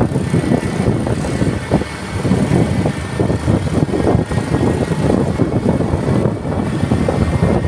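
Steady rushing wind and road noise from a moving vehicle, with the wind buffeting the microphone.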